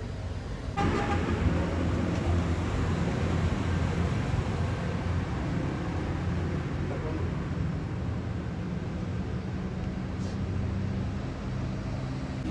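Roadside traffic: a vehicle engine running with road noise. It grows louder and hissier about a second in.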